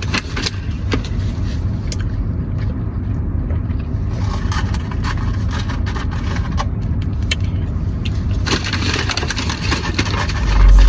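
Low steady rumble of a car cabin with a run of crackling, crunching clicks from eating a fast-food meal, getting denser near the end.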